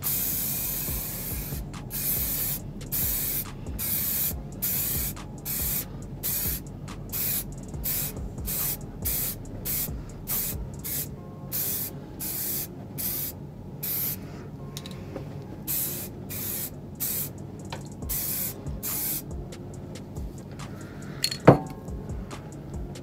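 Aerosol spray can spraying paint in short passes: one longer hiss of about a second and a half, then many short hisses about two a second, stopping a few seconds before the end. A single sharp knock near the end.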